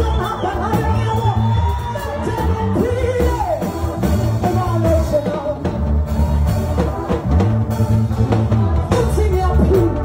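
Live gospel song: singing led by a woman through a microphone over a band with a heavy, repeating bass line.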